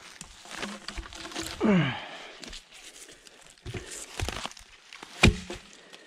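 Footsteps and twigs crackling on the forest floor while cut logs are handled, with a short sound falling in pitch just under two seconds in and a sharp wooden knock about five seconds in as a log is dropped onto the pile.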